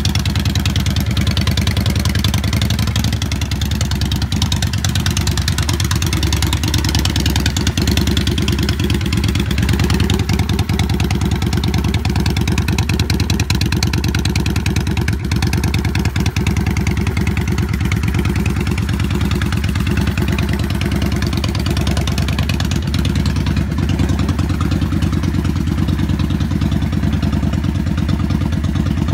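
A 2000 Yamaha XVS650 V-Star Classic's air-cooled V-twin engine running steadily at idle through its stock chrome twin exhaust pipes.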